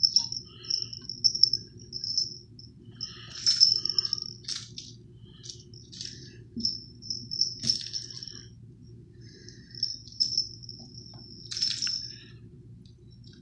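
A toy mouse hanging from a cat tree jingling with a high ringing tone in short bursts as a cat bats and tugs at it, with scuffs and knocks from the tree.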